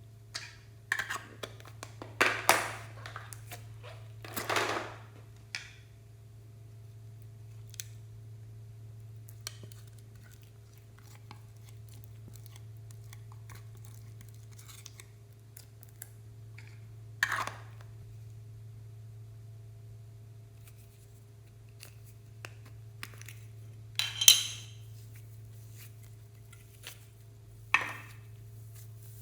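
Slime being squeezed and stretched by hand, giving scattered sticky pops and crackles with quiet gaps between them, over a steady low hum.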